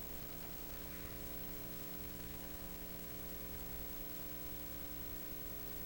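Faint steady hiss with a low electrical hum underneath: the recording's background noise between lines of narration.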